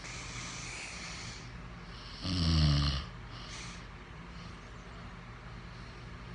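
A man snoring: a softer airy breath at the start, then one loud, low snore about two seconds in that lasts under a second.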